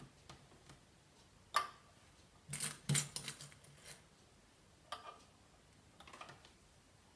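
Small plastic sewing clips being snapped onto the edge of layered fabric: scattered quiet clicks with handling noise, a quick run of them about two and a half to three seconds in.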